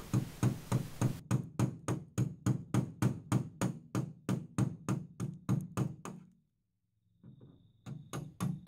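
Hammer tapping steadily, about four blows a second, on a flat steel bar held against a Land Rover's aluminium front wing, working old body filler off the panel. The tapping stops about six seconds in, then resumes with a few quieter taps that grow louder.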